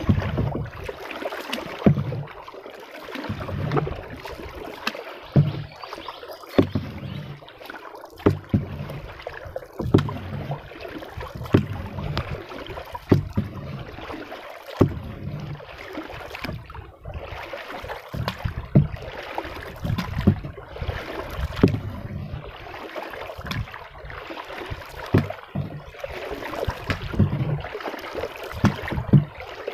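Small wooden boat being paddled on a river: a paddle stroke about every one and a half seconds, each a swish of water, many with a sharp knock of the paddle against the hull.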